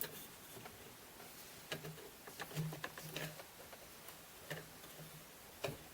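Scattered light clicks and taps at irregular intervals, from small tools, wires and parts being handled during soldering work at a bench.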